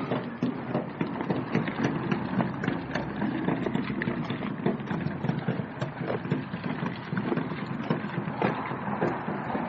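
Hotpoint 9534 washing machine being wheeled over hard ground: a steady rumble of wheels with frequent irregular knocks and rattles.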